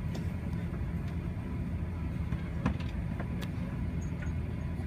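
Steady low rumble inside an Airbus A380 cabin while the plane is on the ground before take-off, with a few faint clicks.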